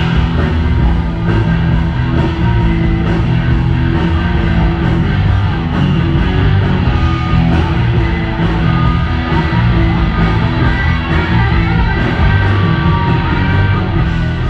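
Loud hard rock music with guitar and a steady beat.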